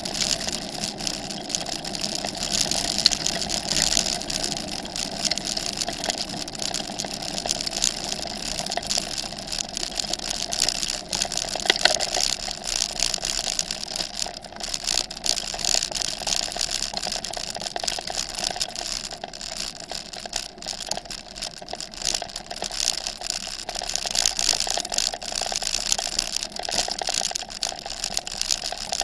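Bicycle tyres rolling over a gravel road, a steady rumbling hiss with many small clicks and rattles from the bike jolting over stones, picked up by a camera mounted on the handlebars.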